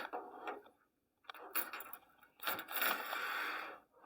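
Handling noise: a small USB-C adapter scraping and rubbing as it is turned over in the hands, in short bursts with a longer stretch of rubbing near the end.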